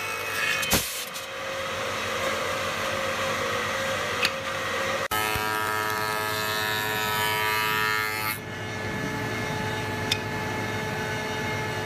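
Electric woodworking machines running steadily while wood is fed past their cutters, first a spindle shaper and then, after a brief break about five seconds in, a table-mounted cutter. There is a steady whine and a few sharp clicks.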